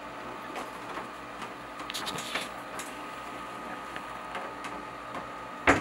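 Light head of a photodynamic-therapy lamp being fitted by hand onto its arm mount: small plastic clicks and rattles about two seconds in, then one sharp knock near the end as it seats, over a steady hum.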